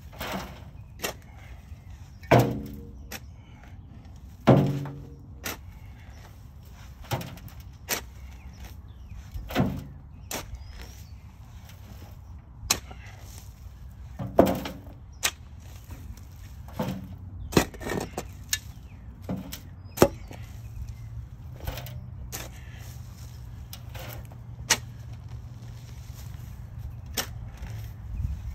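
Steel shovel digging in a flower bed: irregular scrapes and thuds of the blade cutting into soil and roots, with clods dropped into a wheelbarrow. The two loudest knocks, about two and four and a half seconds in, ring briefly; a low steady hum joins about twenty-one seconds in.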